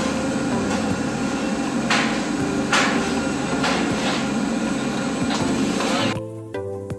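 Steady industrial plant machinery noise around a coal feeder: a low hum under a broad rush, with a few brief hissing swells about two to four seconds in. It cuts off abruptly about six seconds in and gives way to background music.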